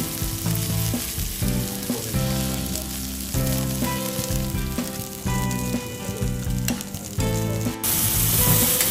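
Food sizzling in beef fat on a teppanyaki iron griddle, a steady frying hiss.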